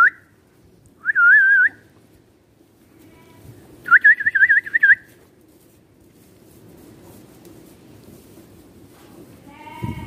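A person whistling to call sheep: a short warbling whistle about a second in, then a longer trilled whistle at about four seconds. A sheep bleats near the end.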